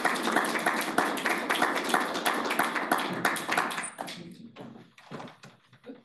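A small audience applauding, many hands clapping, which dies away about four seconds in and leaves a few faint knocks.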